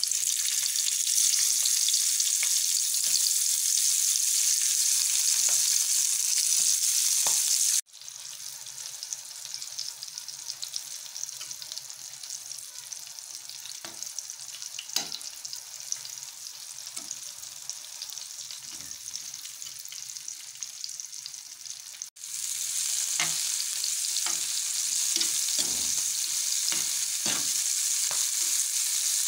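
Masala-stuffed green chillies sizzling in hot oil in a metal frying pan, with a spatula scraping and turning them. The sizzle drops suddenly to a quieter level about eight seconds in and comes back loud about twenty-two seconds in, where the scraping is most frequent.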